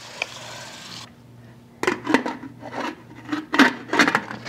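Water from a kitchen sprayer running into a stainless steel pressure cooker, stopping about a second in. Then metal clicks and scraping as the cooker's lid is set on and twisted shut.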